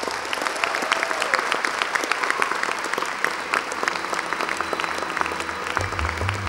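A large audience applauding, many hands clapping densely and steadily.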